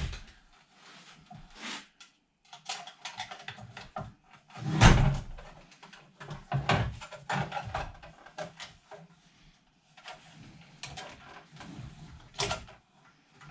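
Boards and tools being handled on a workbench: scattered knocks, scrapes and clatter, with one heavy thump about five seconds in.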